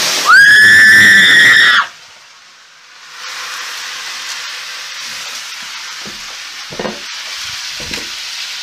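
Water flashing in the hot oil and erupting into a fireball with a rushing whoosh, then a loud, high-pitched scream lasting about a second and a half. After a short lull, the oil fire burns with a steady hissing sizzle, with a few dull knocks near the end.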